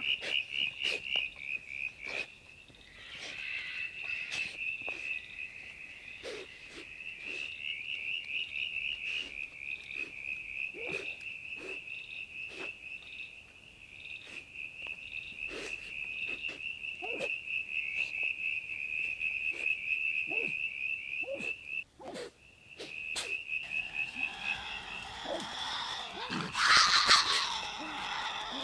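A young Tasmanian devil feeding on a roadkill carcass, with short clicks and crunches of chewing scattered throughout. Under them runs a night chorus's steady, fast-pulsing high trill. Near the end comes a loud noisy burst lasting about two seconds.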